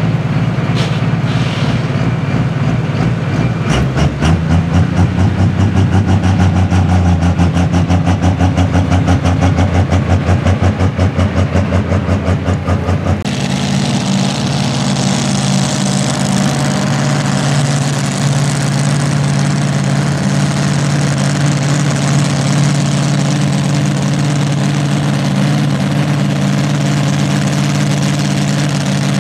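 A pulling vehicle's engine runs loudly and steadily. About four seconds in it turns louder with a fast pulsing beat. Near the middle it changes abruptly to a steadier engine note with a hiss over it.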